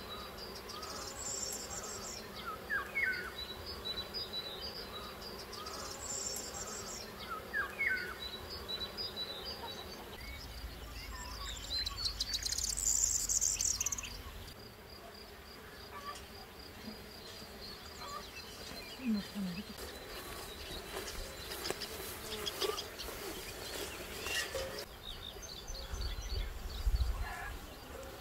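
Outdoor ambience of insects buzzing, with a steady high insect drone and birds chirping now and then; a low rumble comes and goes.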